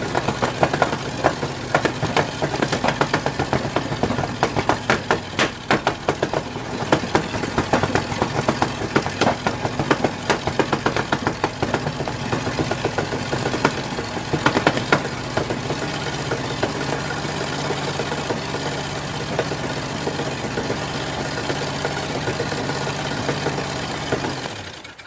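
A 270 cubic-inch Hemi V8 with a Cam Grinders Molina camshaft running at a lumpy, choppy idle with sharp uneven cracks, the cam's cackle. The beat steadies after about fifteen seconds, and the sound cuts off suddenly near the end.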